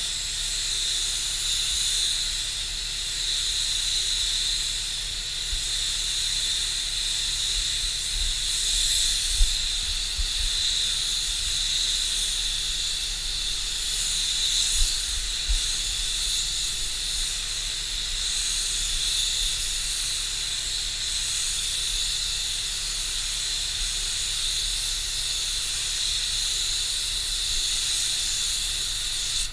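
Gravity-feed HVLP spray gun hissing steadily as compressed air atomizes clear coat onto a car panel. A couple of brief soft thumps come about a third and halfway through.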